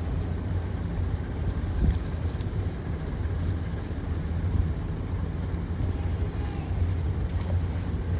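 Motorboat engine running steadily under way, a low even hum, with wind on the microphone.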